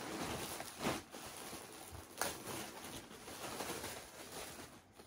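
Clothes and their packaging being handled, rustling, with louder rustles about one and two seconds in.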